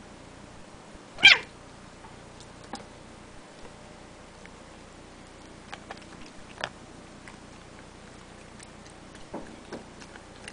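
A Bengal cat gives one short, high meow about a second in, followed by a few faint light clicks or taps.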